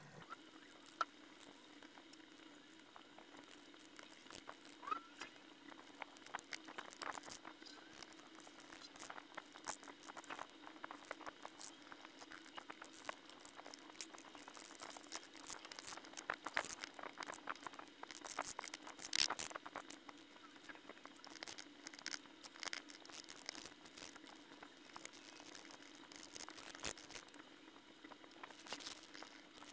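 Wooden toothpick scraping corrosion off the face of a corroded coin: many short, irregular scratches and ticks of wood on metal and crumbling crust.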